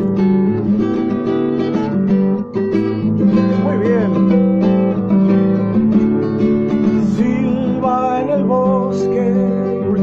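Nylon-string classical guitar strummed in an instrumental passage, full chords struck in a steady rhythm.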